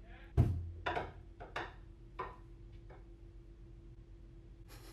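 Handling noise on the vlogging camera as it is moved: a dull thump about half a second in, then a few soft knocks and rubs, over a faint steady hum.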